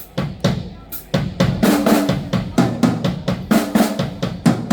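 Drum kit being played for a sound check: kick drum and snare hits in a quick, loose pattern, several strokes a second.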